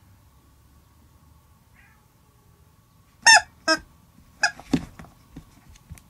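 A cat playing with a plush toy under a cloth mat: two short, high squeaks about half a second apart, then a burst of thumps and rustling as it pounces on the mat.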